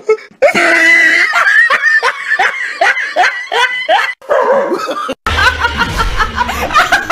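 People laughing: a fast run of short ha-ha bursts of falling pitch for the first four seconds, then, after a short break, a woman laughing.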